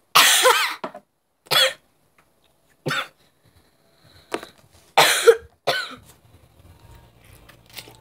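A girl coughing in a severe fit: about six separate hard coughs over six seconds, the first and one about five seconds in the loudest, then it dies away.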